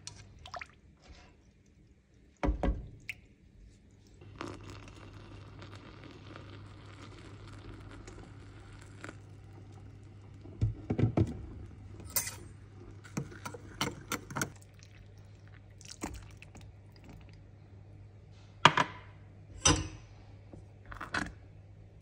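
Kitchen prep sounds: a spatula stirring coconut milk in a pan, and a spoon clinking against a glass mug while mixing cocoa powder, with scattered sharp knocks and scrapes of utensils on glass and pan, the loudest two near the end. A low steady hum runs underneath.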